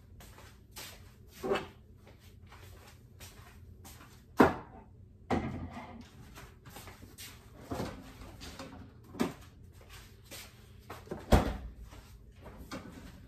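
Knocks and clunks of kitchen cupboard doors and containers being handled: about half a dozen sharp knocks, the two loudest about four and eleven seconds in.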